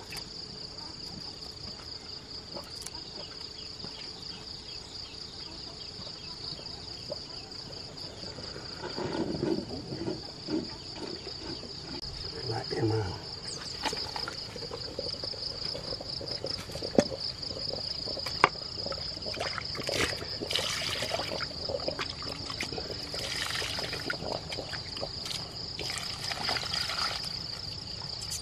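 Insects chirring in a steady high trill throughout. From about a third of the way in, a metal pan and basin clink and clatter, and near the end water splashes and trickles as the winged insects are stirred and rinsed by hand in the basin.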